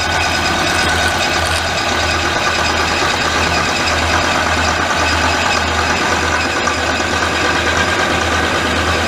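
Metal lathe running under power, its gear train whining steadily while a carbide-insert tool takes a cut into steel of unknown hardness.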